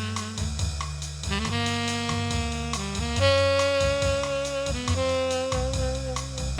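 Background music: a saxophone-led jazz tune, with held notes that change every second or so over a bass line and drums.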